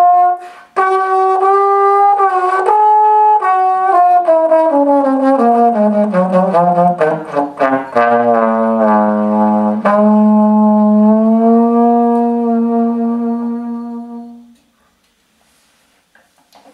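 Unaccompanied slide trombone playing the closing phrase of a jazz ballad: a series of notes falling in a descending run, then one long low final note that dies away about fourteen seconds in.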